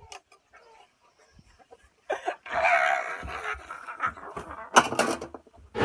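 A man laughing and crying out loudly, starting about two seconds in, with a few sharp clicks near the end.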